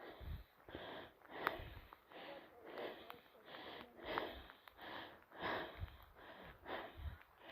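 A person breathing hard and fast close to the microphone while walking, about one or two breaths a second, with occasional soft low thumps of footsteps.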